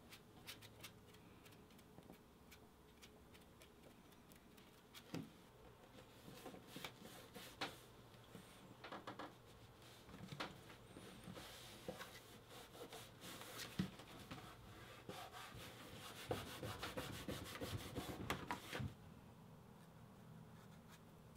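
Faint rubbing and scratching of hand tools on leather, with scattered light clicks and taps, busiest through the middle and dying away a couple of seconds before the end.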